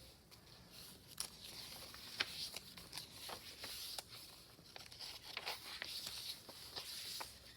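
Faint rustling and light taps of paper as the pages of a handmade collage journal are handled and turned.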